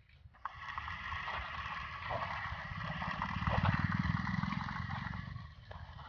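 Electric drive motors of a small robot car whirring as it drives over dirt, a steady whine with a low rumble beneath. It starts about half a second in, is loudest just past the middle and fades near the end.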